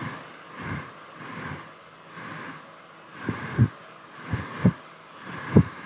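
Hair dryer running steadily, a constant fan hum, broken by about eight irregular low puffs of air buffeting the microphone, the loudest in the second half.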